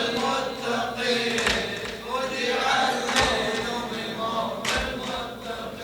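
A congregation of mourners chanting a Shia latmiyya refrain together, a loose blend of many voices, with a dull thump about every one and a half seconds from the mourners' rhythmic chest-beating (latm).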